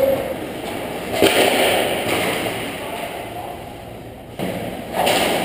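Ice hockey play in a rink: a sharp hit about a second in, followed by skates scraping the ice, and another burst of skate scraping near the end.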